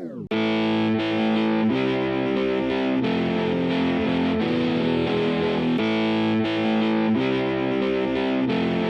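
Background music: a distorted electric guitar playing sustained chords that change about every second, with no vocals.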